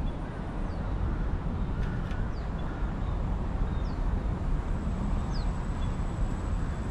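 Wind rumbling on the microphone, with a bird repeating a short, high, falling whistle four times, about once every second and a half.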